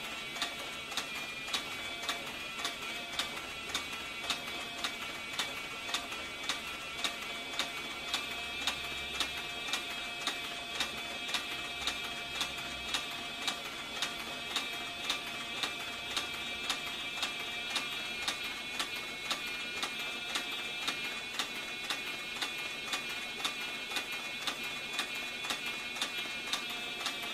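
Hightext CB4500 heavy-duty triple-feed leather sewing machine stitching thick saddle leather at a slow, even pace: a sharp click for each stitch, a little under two a second, over a steady motor whine.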